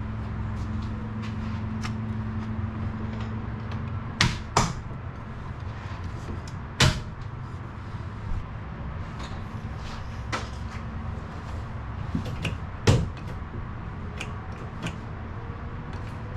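Handling clicks and knocks of small metal parts being test-fitted to an outboard shifter linkage. A few sharp knocks, the loudest about four, seven and thirteen seconds in, come among lighter clicks over a steady low hum.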